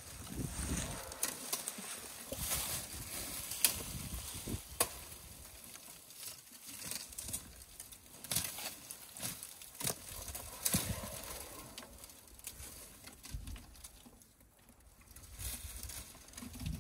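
African elephant feeding, its trunk tearing and pulling up dry grass and brush: irregular rustling and crackling with a few sharp snaps of dry stems and twigs.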